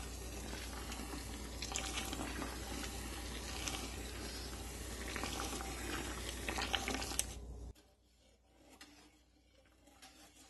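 Granulated sugar poured in a steady stream into a stainless steel pot of boiling violet tea and pectin, a continuous hissing rush over the boiling liquid. It stops suddenly about three-quarters of the way through, leaving only faint sounds.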